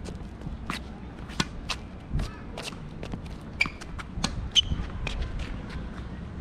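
Sneakers scuffing and shuffling on an asphalt court, with irregular sharp knocks of tennis balls being struck and bouncing. The loudest knock comes a little over halfway through.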